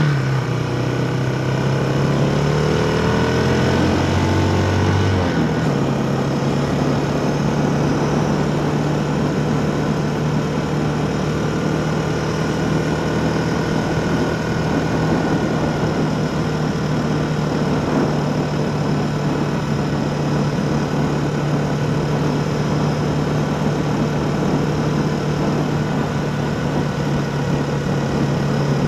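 A motor vehicle's engine accelerating, its pitch rising over the first five seconds or so, then holding a steady hum at a constant cruising speed of about 50 km/h, over a steady hiss of wind and road noise.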